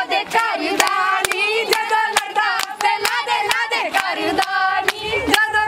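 Women's voices singing a Punjabi boli together, with steady rhythmic hand-clapping of the gidha dance, about two claps a second.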